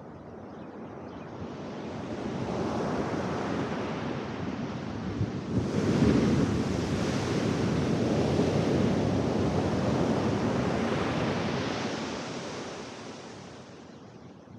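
Ocean surf on a sand beach: a rush of water builds, a wave breaks suddenly about six seconds in, and the loud wash runs on for several seconds before fading near the end.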